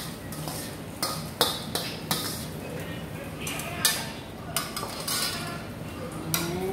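Stainless steel ladle and colander knocking against a stainless steel cooking pot as rice is scooped and turned, making several sharp metal clanks about one a second.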